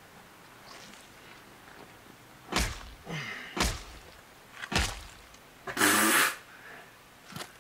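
Three dull thuds about a second apart, then a longer, louder noisy blow lasting about half a second and a small click near the end: blows struck to reshape the nose of a severed walker head, from a TV drama's soundtrack.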